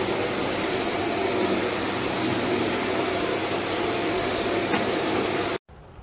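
Kärcher VC 3 Premium Plus 1100 W bagless canister vacuum cleaner running steadily with a constant whooshing motor drone. The sound cuts off suddenly about five and a half seconds in.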